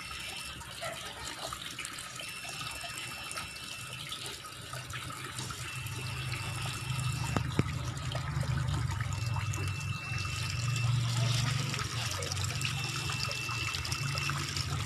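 Tap water pouring from a pipe faucet into a large plastic tub, a steady splashing fill that grows fuller from about halfway through. A faint high tone beeps over it about every two seconds, each beep lasting a second and a half.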